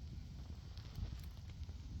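Campfire burning, with faint scattered crackles over a steady low rumble.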